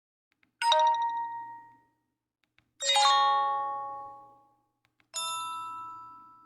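Nokia 8000 4G phone speaker playing three short default chime tones one after another, about two seconds apart. Each is a bright struck note that rings and fades out, with faint clicks in the gaps between them.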